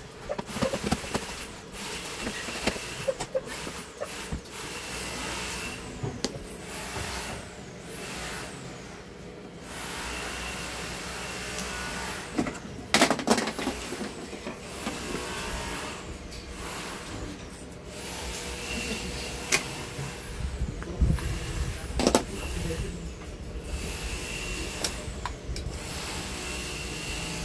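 Electric screwdriver running in repeated short bursts of a second or two, each with a steady whine, as it backs out the mounting screws of a TV main board. Two sharp knocks stand out, about 13 and 22 seconds in.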